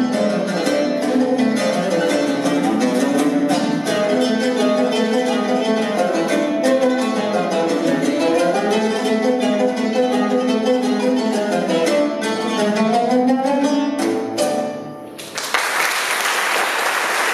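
Two ouds playing together, a quick run of plucked notes that ends about fifteen seconds in with a final note. An audience breaks into applause right after.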